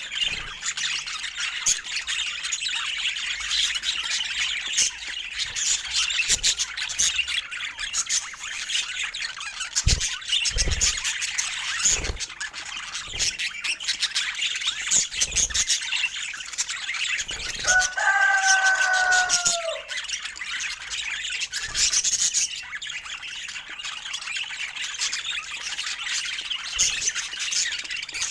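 Several budgerigars chirping and chattering continuously in a dense, high-pitched twitter. About two-thirds of the way in, one longer, lower call sounds for about two seconds, and there are a few dull low thumps.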